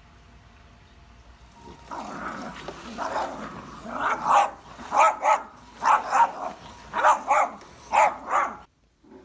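A dog barking, starting softer and building into loud double barks about once a second; it cuts off suddenly near the end.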